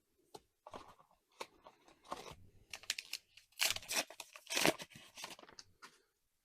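A foil card booster pack being torn open, its wrapper crinkling, in a series of uneven rasps that are loudest about midway through.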